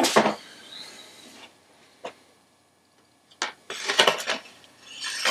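Sword being swung and handled: a sharp knock with a brief ringing scrape at the start, a lone click about two seconds in, then a cluster of rattling clicks and scrapes of metal and wood near the end.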